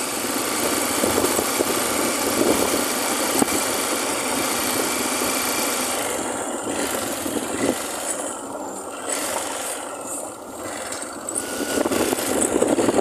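Motorcycle engine running while riding along a dirt road, with wind rushing over the microphone; it eases off about ten seconds in and picks up again near the end.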